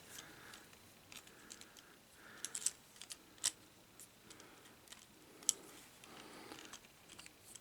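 Faint clicks and light rustling of a plastic Transformers Studio Series Hot Rod action figure being handled, its shoulder joints rotated and arms folded in, with a few sharper plastic clicks about two and a half, three and a half and five and a half seconds in.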